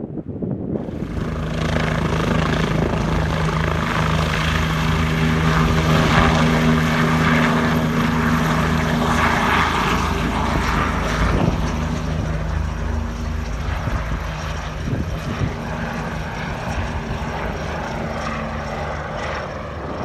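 Helicopter flying close by: a steady low pulsing of the rotor under a droning engine tone. It grows louder over the first few seconds, then slowly fades as it moves off.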